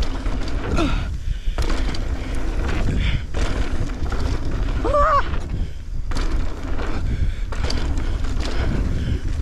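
Mountain bike riding over dusty dirt jumps: continuous tyre noise on dry dirt with rattling from the bike, and a short vocal exclamation about five seconds in.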